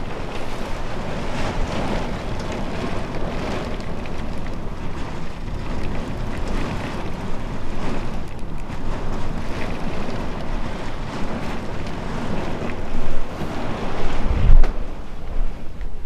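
Heavy rain and gusting wind in a storm, a steady rushing noise. Near the end, strong gusts buffet the microphone in two loud low rumbles.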